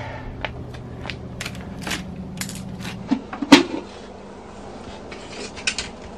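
Aluminium foil crinkling and crackling as it is pulled off an electric wok. A loud metallic clunk comes about three and a half seconds in as the wok's domed metal lid is lifted, and a few clatters follow near the end as the lid is set down.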